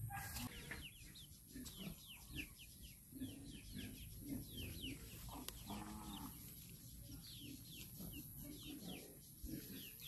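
Free-range chickens clucking softly as they forage, with one longer call about six seconds in. Many short, high, falling chirps from birds repeat throughout.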